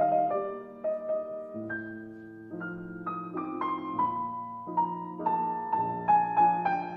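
Piano music: a slow melody of struck notes over lower held notes.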